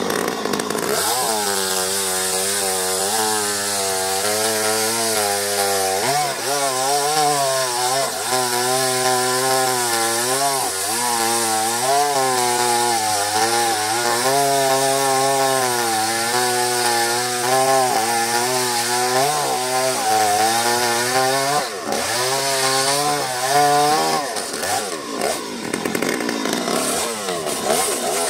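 Two-stroke chainsaw engine running under load as it cuts into a coconut tree trunk, its pitch rising and falling as the chain bites. There is a brief dip about three-quarters of the way through, and a rougher, less even note near the end.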